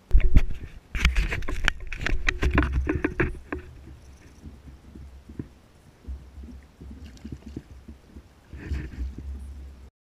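Rapid splashes and knocks against a plastic kayak as a caught redfish is handled over the water, densest in the first few seconds with another short burst near the end, over a low wind rumble on the camera microphone.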